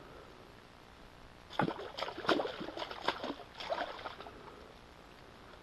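A hooked fish thrashing at the surface in shallow water beside rocks: a string of irregular splashes starting about a second and a half in and dying away about four seconds in.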